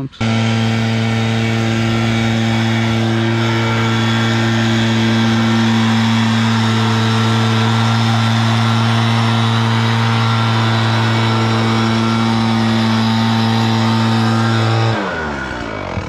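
Skid steer with a stump grinder attachment running at a steady high speed, a constant engine note with a whine above it, then winding down in pitch near the end.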